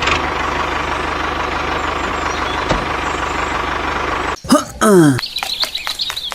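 Truck engine idling steadily with an even low pulse, cutting off about four seconds in. A brief voice-like sound and a run of sharp clicks follow near the end.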